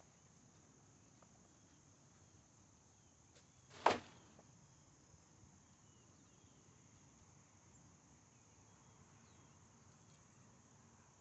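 Faint, steady high-pitched insect trilling, like crickets, with one sharp knock about four seconds in.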